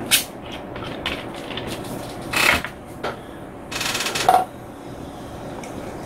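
Plastic makgeolli bottle being handled on a table: a click near the start, then a couple of short rustling, hiss-like noises, the longest about four seconds in.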